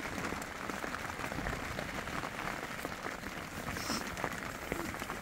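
Steady rain pattering on the tent, a dense patter of fine drops.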